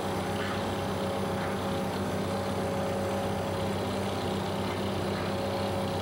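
Engine of heavy construction machinery running steadily at a harbour worksite, a continuous low hum.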